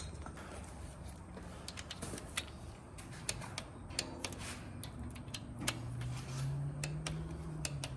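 Scattered light clicks and metallic ticks of hand tools working on engine timing parts, with a faint low hum that rises slightly in the last two seconds.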